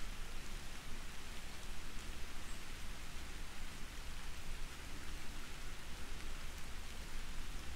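Soft, steady rain falling, an even hiss with a low rumble underneath.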